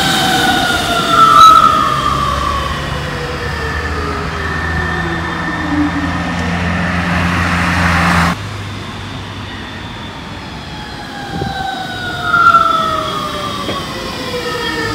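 Siemens VAL 208 rubber-tyred metro train running past on the depot track, its electric traction drive whining in several tones that slide down in pitch. A low hum and hiss stop abruptly about eight seconds in, and a second falling whine comes in near the end as a train passes again.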